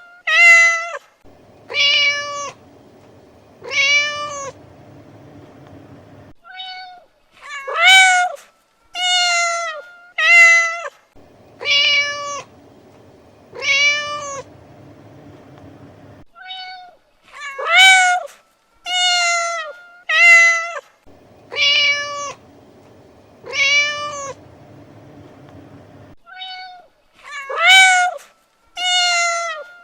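Domestic cat meowing over and over, short pitched meows several seconds apart; the same sequence of meows repeats about every ten seconds, as a looped recording.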